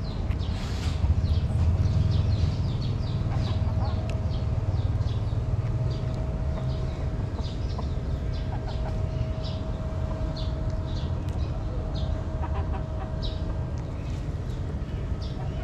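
A kitten eating wet cat food and dry kibble close to the microphone: a quick, irregular run of small smacks and crunches. Under it is a low rumble that is heaviest in the first few seconds, and a faint steady tone.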